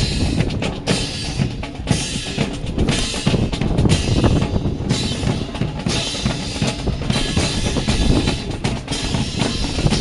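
Drum-led music, mainly bass drum and snare drum, playing continuously at a steady, loud level.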